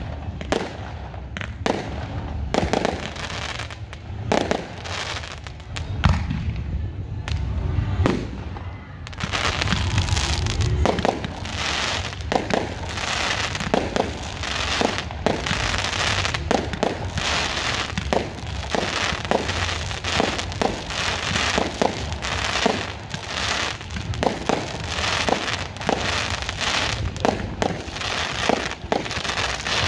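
Aerial fireworks going off in a rapid series of bangs and crackles. About nine seconds in the bursts thicken into a dense, continuous crackling barrage.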